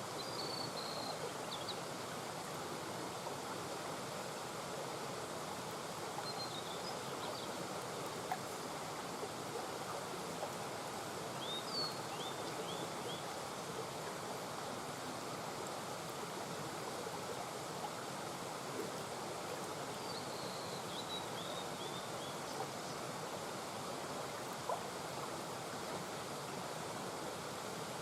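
Mountain brook flowing in a steady murmur, with short high chirps from a bird heard a few times over it.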